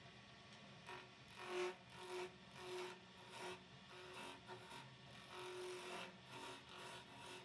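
Turning tool cutting into a spinning wooden spindle blank on a wood lathe, in about ten short scraping cuts starting about a second in, over the lathe's faint steady hum.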